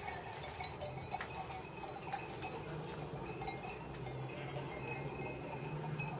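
Many goat bells clinking and ringing at irregular moments from a herd of goats on the move, over a low steady hum.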